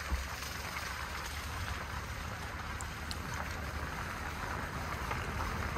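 A car driving on a wet, slushy road, heard from inside the cabin: a steady hiss of tyres on the wet surface over a low, even road and engine rumble.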